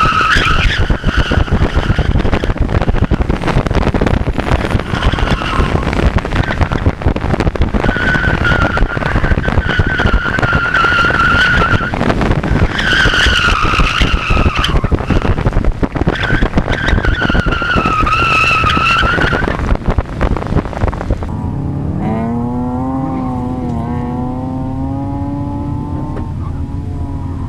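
Honda S2000's 2.2-litre four-cylinder at full effort on an autocross course, heard from the open cockpit with heavy wind noise, as the tires squeal through the corners in five long stretches. About 21 seconds in, this cuts to the engine idling, blipped once and then held at rising revs at the start line.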